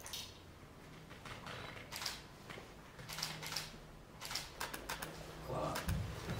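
Hushed room during a minute's silence: faint scattered clicks and rustles over a low intermittent hum, with louder shuffling movement near the end.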